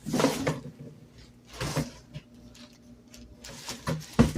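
Packaging and a portable shampoo bowl being handled as they come out of the box: three short rustling, scraping bursts, one at the start, one a little under two seconds in and one near the end.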